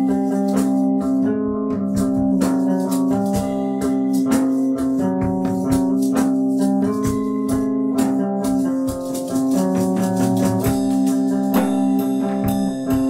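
Instrumental music: short plucked notes over long held low tones, with a steady busy percussive beat.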